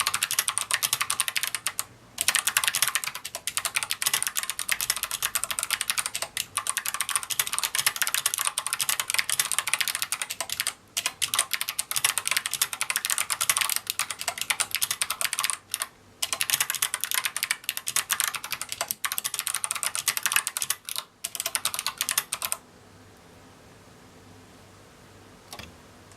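Fast, continuous typing on a GMMK mechanical keyboard with clicky Kailh BOX Navy switches and tall SA-profile keycaps: a dense stream of sharp clicks with a few short pauses. The typing stops about three-quarters of the way through, and there is one faint click near the end.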